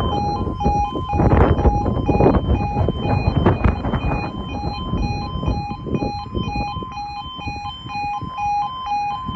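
UK level crossing audible warning alarm sounding as the barriers come down: two alternating tones repeating quickly and evenly. A rumbling noise underneath fades out about halfway through.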